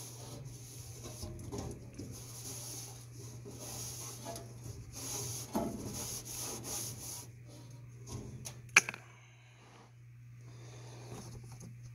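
Wiping and scrubbing calcium buildup off a metal shelf inside a furnace: uneven rubbing strokes, with one sharp knock about nine seconds in. A steady low hum runs underneath.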